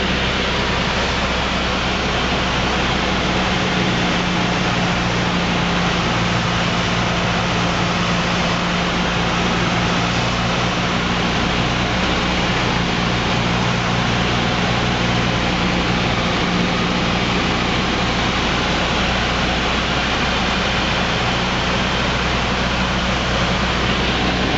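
Cessna 172's piston engine and propeller running steadily in flight, heard inside the cabin as a constant drone under a rush of air noise.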